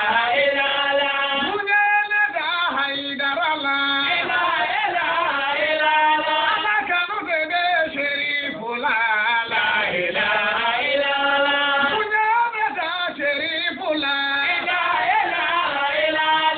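A group of men chanting together: a melodic devotional chant that carries on without a break.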